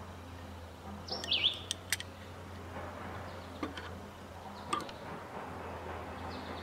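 A bird chirps briefly about a second in, and a few light clicks come from the slide-hammer bearing puller being handled on the fan-motor shaft.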